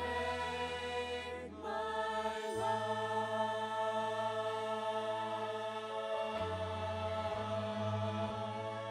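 Slow devotional music: long held, choir-like notes over a low bass that changes note twice.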